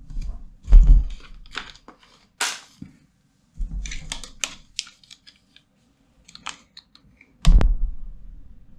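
Scattered clicks and knocks from computer and VR gear being handled at a desk, with two heavy thumps, about a second in and near the end.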